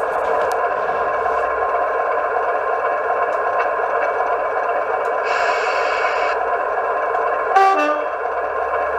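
DCC sound decoder in a model diesel locomotive, playing a steady diesel engine idle. A burst of hiss comes about five seconds in, and a short two-tone horn, high then low, sounds near the end.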